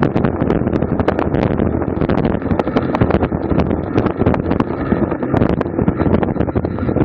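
Wind buffeting the microphone of a camera on a racing bicycle at speed, a steady loud rush with many irregular clicks and rattles throughout.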